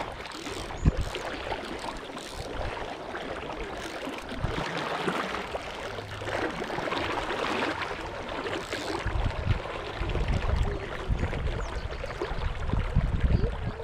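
River current rushing and splashing around a wader's legs. From about two-thirds of the way in, wind buffets the microphone with a heavy, uneven rumble.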